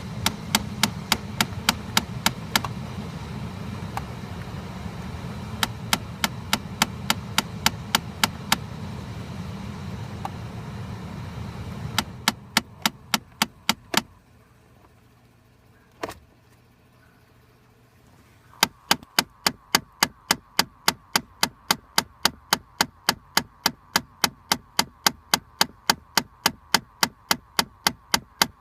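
Loud, rapid clicking from behind the glovebox of a 2013 Chrysler 200, near the cabin air filter. It goes at about three to four clicks a second in runs that stop and start again, with one long pause in the middle. A low hum underneath stops about twelve seconds in.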